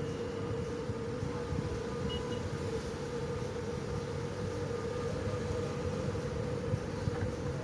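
Ship's engines running: a steady low rumble with a constant hum held at one pitch.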